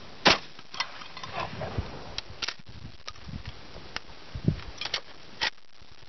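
A single shot from a 12-gauge Remington 870 pump shotgun firing birdshot, a sharp blast about a quarter of a second in. It is followed by a scatter of shorter clicks and knocks and a few dull thuds over the next five seconds.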